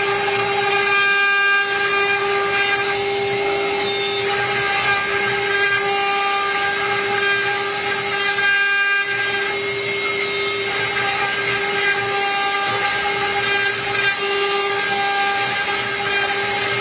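LINKCNC LXG1224 CNC router's spindle running with a steady high whine and overtones while its bit cuts into PVC, under a hiss of cutting that rises and dips as the tool moves.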